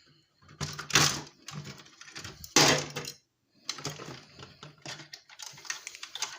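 Clatter of e-waste parts being handled and tossed: two louder knocks about one and two and a half seconds in, then a run of lighter clicks and rattles.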